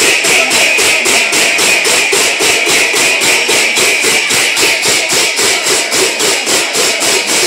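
A group of large brass hand cymbals clashed together in a fast, steady rhythm of about five strikes a second, with a continuous metallic ring between strikes.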